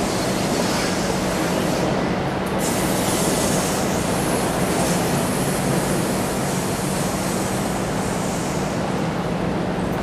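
A train passing on nearby tracks: a steady rumble with a rushing high hiss that is strongest in the first half and thins out near the end, over a steady low hum.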